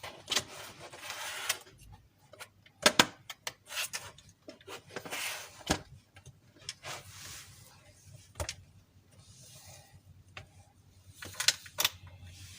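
Handling noises: irregular clicks and knocks with short rustling, as a plastic toy is handled.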